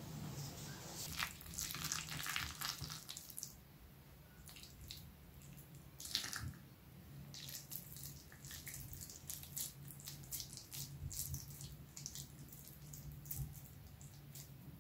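Hands kneading and squeezing a wet mixture of minced meat and chopped cabbage in a glass bowl, making irregular squelching, squishing sounds over a faint steady low hum.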